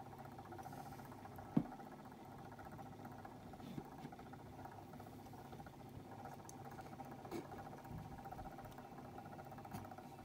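Faint steady hum with a few light knocks as a hand turns a ceramic mug on a cup turner. One sharper click about a second and a half in.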